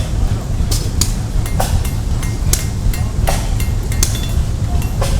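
Blacksmith's hammer striking metal on an anvil in a steady rhythm, about one blow every three-quarters of a second, each with a short metallic ring, over a steady low rumble.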